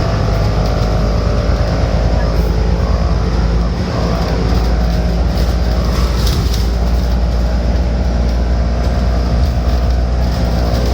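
Alexander Dennis Enviro500 MMC double-decker bus's Cummins diesel engine running steadily under way, its note shifting about four seconds in. A brief hiss about six seconds in.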